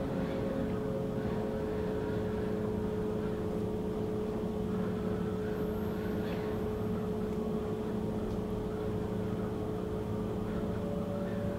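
A steady, unchanging drone: a few held tones over a low rumble.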